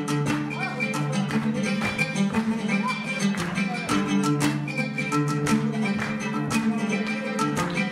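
Solo oud played live: a continuous run of rapid plucked notes over ringing low strings.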